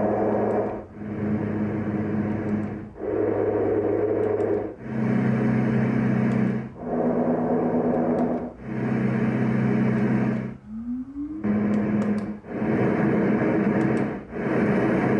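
LectroFan Classic noise machine being stepped through its fan and noise sounds. Each setting plays for about two seconds as a steady hiss with low hum tones that change from one setting to the next, with a brief drop between settings. Just past the middle, one setting starts with a short rising tone.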